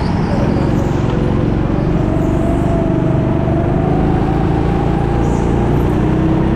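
Go-kart engine running steadily at speed under a continuous noisy rush, its pitch climbing slowly through the middle and then holding.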